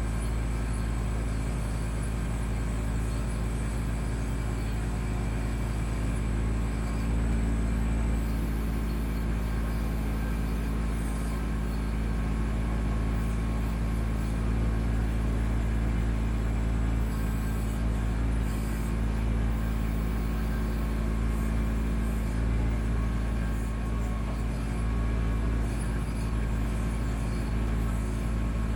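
Kubota B2650 compact tractor's three-cylinder diesel engine running steadily at a constant speed while the backhoe is worked.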